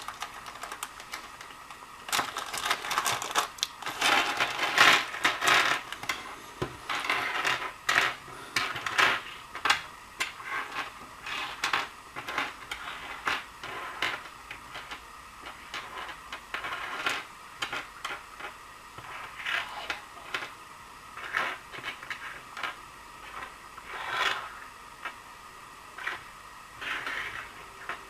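Small plastic T-plug battery connectors being handled in their packaging: irregular clicking and clacking of the plastic pieces against each other, with rustling.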